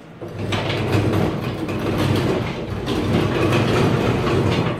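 Casters of a heavily loaded rolling workbench rumbling across a concrete floor under an 800-pound lathe-mill, with light rattling clatter. The rumble starts a moment in and eases near the end.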